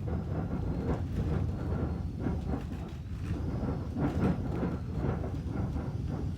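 Hurricane-force wind buffeting a house, heard from inside: a continuous low rumble with irregular knocks and flapping against the walls and roof.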